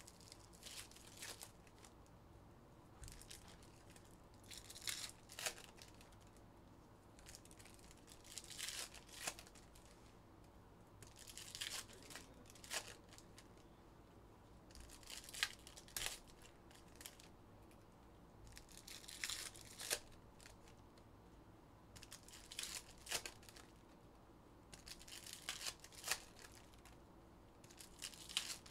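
Foil trading-card packs of Panini Donruss Optic basketball being torn open and crinkled by hand. The sound is faint and comes in short crackly bursts every few seconds.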